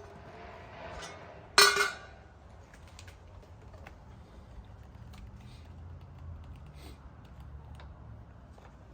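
Scattered light clicks and knocks of handling, with one loud, short metallic clang about one and a half seconds in.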